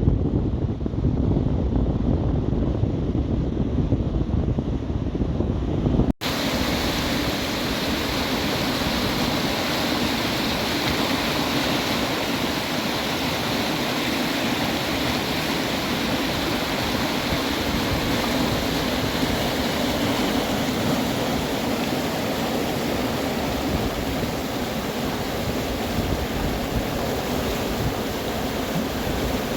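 Wind blowing on the microphone for the first six seconds. After an abrupt cut comes the steady rush of the Lachine Rapids, fast white water on the St. Lawrence River.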